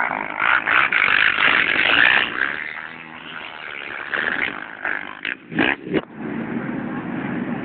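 ATV engines running in a race, a noisy rushing sound that rises and falls in level, with three short loud bursts a little past the middle.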